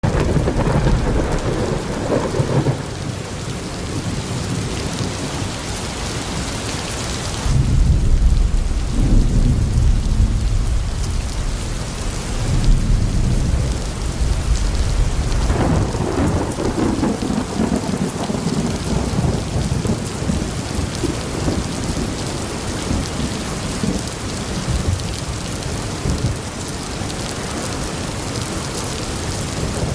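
Thunderstorm: steady heavy rain with deep rolling thunder. The strongest peal starts about eight seconds in and rumbles on for several seconds, and another follows at around sixteen seconds.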